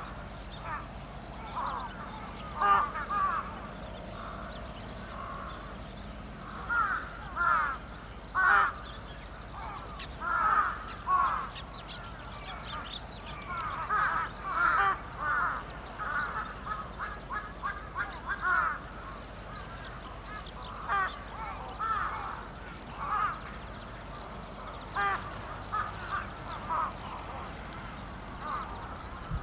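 Jungle crows calling: many short caws, coming in quick runs separated by brief pauses.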